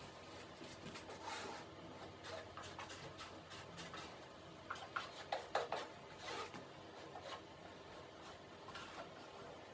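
Faint scattered clicks and rustles of hand work at a fiberglass laminating mold, with a short cluster of louder ones about five to six seconds in.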